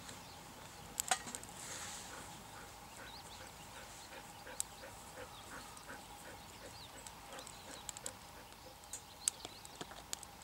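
Wood fire crackling in a folding firebox, with a few sharp pops. Through the middle runs a string of short, soft, evenly spaced notes, about three a second.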